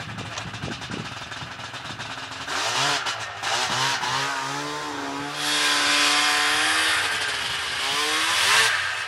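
A small petrol engine runs off to one side: it revs up about two and a half seconds in, holds a fairly steady, slightly wandering pitch, grows louder and rougher about halfway through, swells to its loudest near the end and then drops away.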